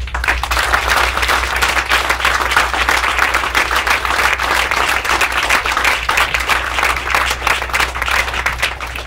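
Audience applauding, many hands clapping at once, starting suddenly and thinning out near the end.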